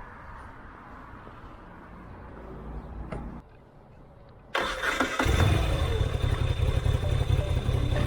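Moto Guzzi V-twin motorcycle engine starting and running, coming in suddenly about four and a half seconds in with a loud, low, pulsing rumble after a quiet stretch.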